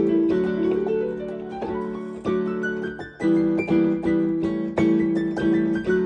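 Jazz improvisation on a keyboard: held chords in the left hand with quick single-note runs in the right, the melody built from plain major scales over the seventh-chord changes. One run climbs stepwise about a second in.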